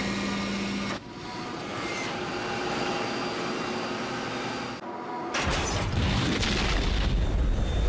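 Airliner cabin drone, cut about five seconds in by a sudden loud blast that carries on as a deep rushing roar. It is the sound of the cargo door blowing out and the cabin decompressing explosively.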